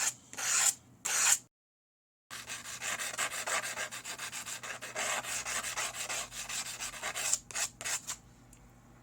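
Steel bobby-pin tip rubbed quickly back and forth on sandpaper, a fast run of rasping strokes as the lock-pick tip is ground to shape. It drops out completely for a moment just after the start, then ends with a few separate strokes near the end.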